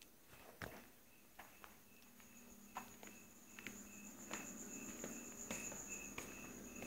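Crickets singing: a steady high trill together with a lower chirping that comes and goes. Scattered faint clicks and knocks sound now and then.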